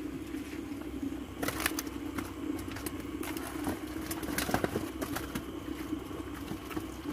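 Live tilapia flapping and slapping in a plastic basket and crate, a scatter of sharp knocks and slaps, over a steady low hum.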